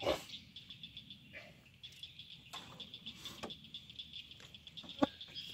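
Steady pulsing chirr of an insect chorus, cricket-like. A few light knocks and clicks sound over it, the loudest right at the start and a sharp click near the end.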